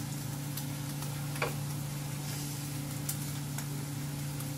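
A steady low hum with a few sparse, light clicks and taps of kitchen utensils, the sharpest about a second and a half in.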